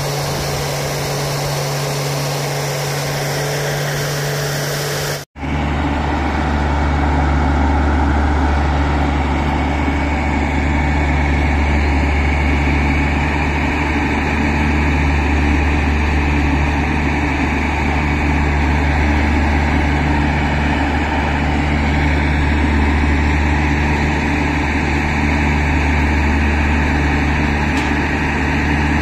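Heavy engine of a rail-mounted utility track vehicle running steadily while its crane handles rails. The sound cuts out for an instant about five seconds in, then the engine is heard louder and deeper.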